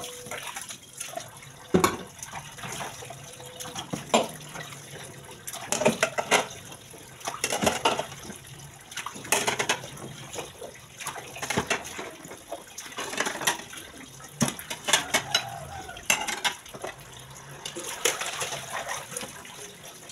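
Water running from a tap as dishes are rinsed one by one, with frequent clinks and clatters of plates and pans being handled and stacked in a metal basin.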